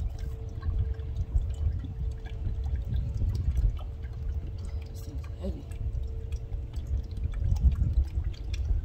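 Motor oil pouring and glugging from a large plastic jug into a funnel in a truck engine's oil filler, a steady uneven low gurgle with small drips and ticks.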